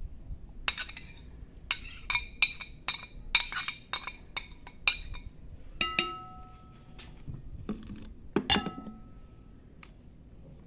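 Metal spoon knocking and scraping against a ceramic plate as chopped onion and herbs are pushed off it: a quick run of sharp clinks, then two ringing clinks of china a couple of seconds apart.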